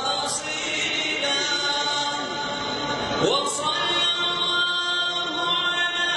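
Vocal music: voices singing long held notes in a choir-like sound, with a sliding note about three seconds in.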